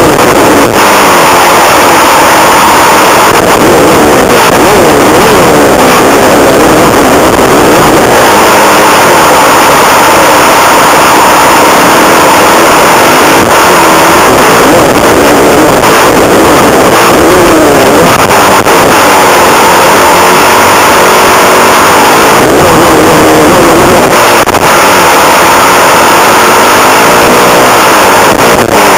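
Suzuki motocross bike's engine revving up and down as it is ridden hard, heard close up from a camera mounted on the bike, loud and constant with its pitch rising and falling as the throttle is worked.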